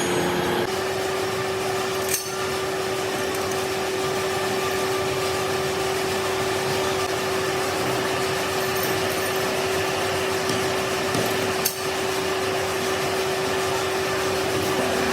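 A metalworking machine in a workshop running steadily, with a constant tone over its noise, and two sharp knocks, about two seconds in and again near twelve seconds.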